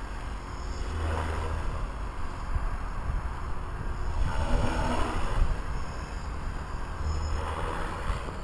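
Blade 360 CFX electric RC helicopter's main rotor whooshing at low head speed. It swells about a second in, around the middle and near the end as the helicopter maneuvers, over a low wind rumble on the microphone.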